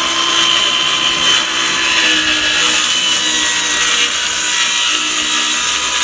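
A power tool running steadily: a loud, even whirring hiss with a faint steady hum under it.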